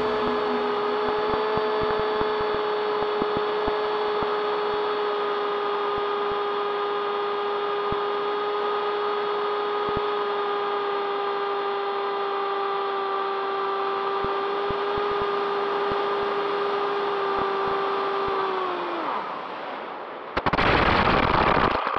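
The electric motor and propeller of a TBS Caipirinha II flying wing run at steady throttle, a steady whine with overtones. About nineteen seconds in the pitch falls away as the motor winds down, and then there is a loud rough scraping rush as the wing touches down on gravel and skids.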